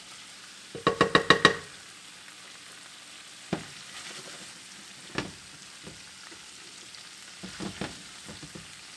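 Garlic, green onions and ginger sizzling steadily in chili oil in a nonstick skillet, the garlic just starting to bubble and fry. A quick run of knocks comes about a second in, and a few single knocks follow later.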